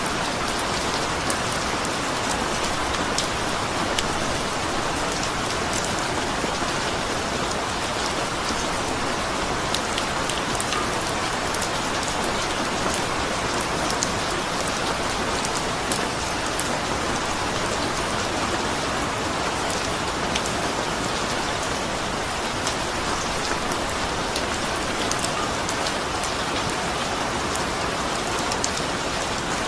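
Steady rain falling, with the even hiss of rainfall and many small, sharp drop ticks on a surface.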